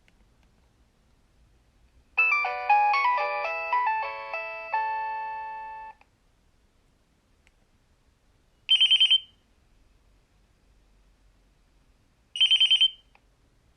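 Nokia 3100 ring and alert tones played through the phone's small speaker. First comes a short chiming melody with several notes sounding at once, lasting about four seconds. Then two identical short bursts of rapid beeps follow a few seconds apart.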